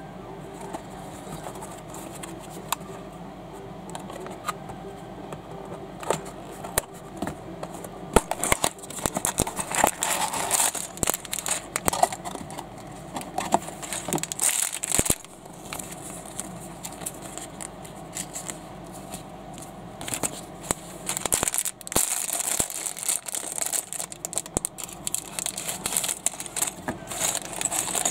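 Plastic parts bags and a cardboard box being handled: crinkling and rustling with scattered small clicks. It is quieter for the first several seconds, then the crinkling comes and goes for the rest of the time.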